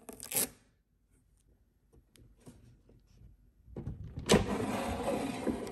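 A short rip of clear packing tape being peeled off the air fryer's side right at the start. After a pause, the Insignia air fryer's basket drawer is pulled out from about four seconds in: a sustained sliding scrape.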